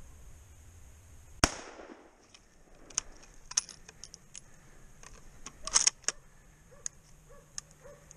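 A single rifle shot about a second and a half in, sharp with a short ringing tail. A few seconds later comes a loud cluster of sharp clicks and rattles, with scattered clicks before and after.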